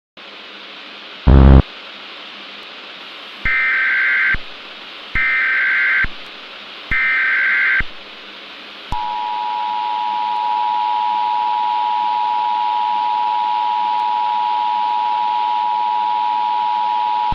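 Emergency Alert System broadcast tones over a steady hiss of static. After a single loud burst of noise, three one-second bursts of SAME header data tones warble. Then the EAS two-tone attention signal, 853 and 960 Hz, sounds as one steady harsh tone for about eight seconds.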